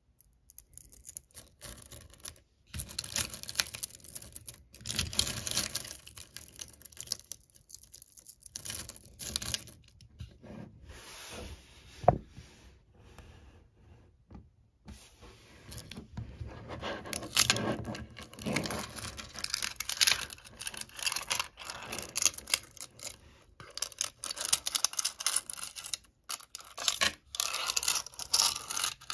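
Hundreds of small magnetic ferrite pebbles clicking and rattling against one another and against a metal tin as they are handled and poured, in waves with short pauses. One sharp knock about twelve seconds in.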